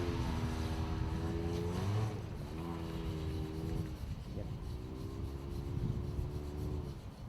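Mitsubishi Outlander XL's 2.4-litre four-cylinder engine pulling under load through its CVT, the revs held nearly steady in three long pushes of about two seconds each, easing off between them and dropping away near the end.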